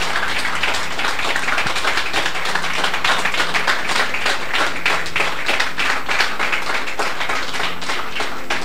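A congregation applauding: many people clapping at once in a dense, steady patter. A faint, steady low tone sits underneath.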